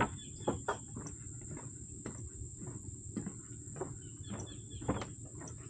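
Footsteps on a wooden plank boardwalk, short knocks about two a second, over a steady high-pitched hum.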